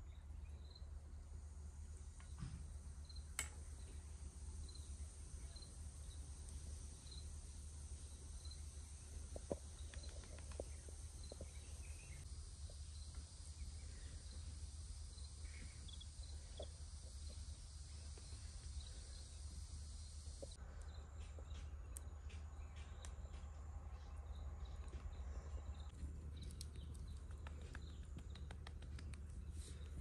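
Faint outdoor ambience: a bird's short high chirps repeated at an even pace for the first dozen seconds, over a high insect-like hiss and a steady low hum, with a few soft clicks. The background changes abruptly about twenty seconds in.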